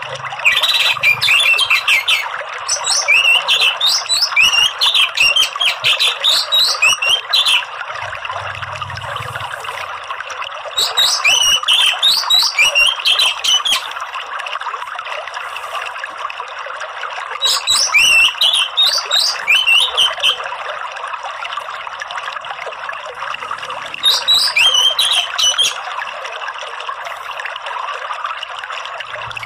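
Orange-headed thrush (anis merah) singing in four bursts of rapid, chattering, rising twitters, the first long and the rest shorter with pauses between, over a steady sound of running water.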